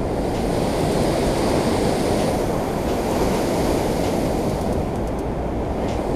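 Steady rushing of water pouring over a concrete spillway into churning whitewater below.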